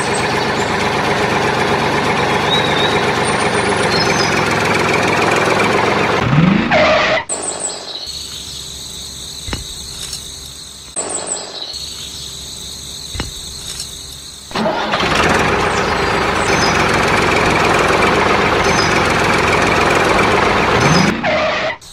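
Steady engine-like running noise from the model tractors, dropping away for about seven seconds in the middle to quieter handling with a few clicks, then coming back; short whooshes mark the breaks.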